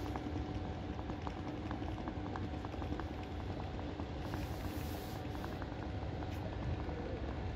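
A train approaching in the distance into the station makes a steady low rumble with a faint hum. Irregular light crackling clicks run through it.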